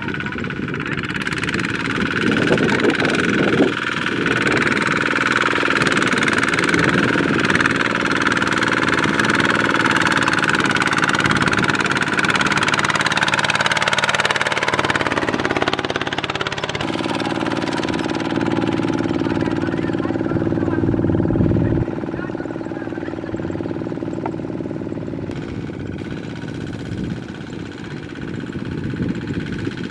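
Single-cylinder diesel engine of a two-wheel walking tractor running steadily under load as it pulls a loaded trailer through a muddy paddy. A steady high whine sits over the engine note in the first half, and the sound drops in level about two-thirds of the way through.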